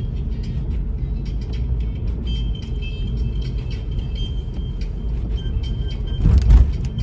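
Steady low rumble of a car driving, engine and tyre noise, with a brief louder burst of noise about six seconds in.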